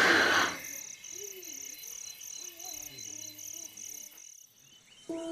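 Night insect, cricket-like, chirping in an even high-pitched rhythm of about two and a half chirps a second, with faint wavering calls lower down. The chirping stops shortly before the end, and music begins.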